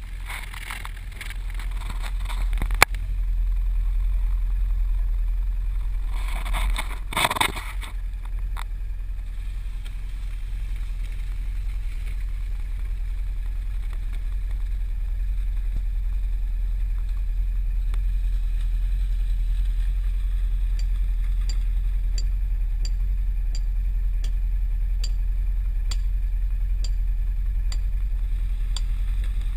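Polaris Sportsman 500 ATV engine running steadily under load, with two short noisy bursts in the first eight seconds and a sharp knock about three seconds in.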